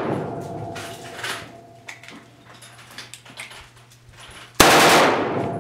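A single AK-pattern rifle shot about four and a half seconds in, with a long echo trailing off across the range; the echo of an earlier shot is dying away at the start.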